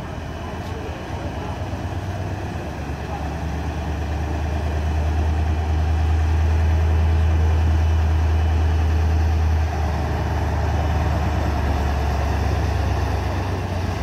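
Heavy diesel engine of a fire engine running close by, a deep steady rumble that grows louder, then eases slightly about ten seconds in.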